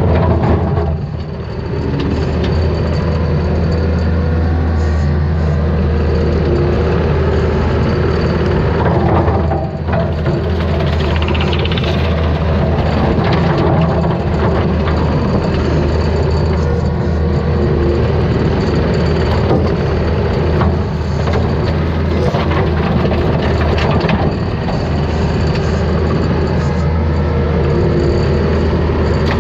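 Takeuchi TL250 track loader's diesel engine running hard under load while its hydraulic brush cutter attachment spins, mowing through brush and saplings. The steady drone dips briefly twice, about a second and a half in and again around ten seconds in.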